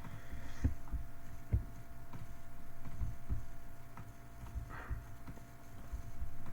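Scattered soft knocks and faint clicks, irregular and a second or so apart, from computer mouse clicks and desk contact during CAD work, over a steady thin electrical hum.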